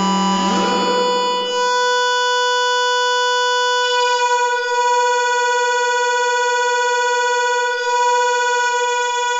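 Experimental electronic music: a cluster of rising pitch glides settles about a second in onto a single steady tone, held with its overtones and wavering slightly in the middle. A low drone under it fades out early.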